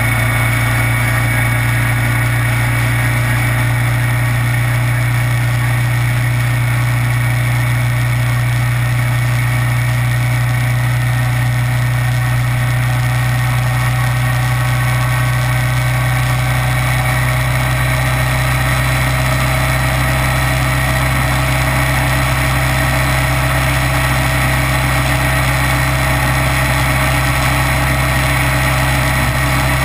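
Kawasaki Vulcan 900's V-twin engine running at a steady, unchanging pitch, with an even rush of wind noise over it.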